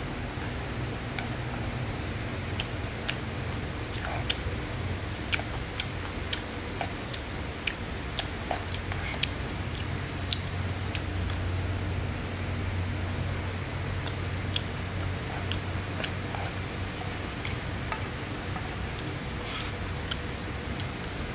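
Metal spoon stirring fried rice in a non-stick frying pan: irregular light clicks and scrapes as the spoon knocks against the pan, over a steady low hum.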